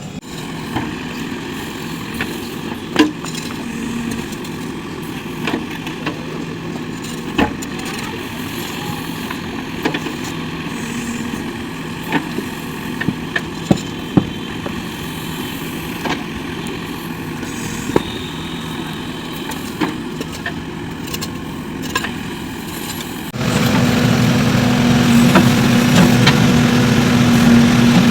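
JCB 3DX backhoe loader's diesel engine running steadily, with scattered sharp knocks and clanks. About 23 seconds in, the engine suddenly gets louder and its note rises, as if put under load or revved.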